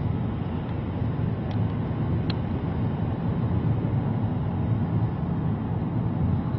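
Steady in-cabin noise of a car driving on a city highway: a low rumble of road and engine with tyre hiss.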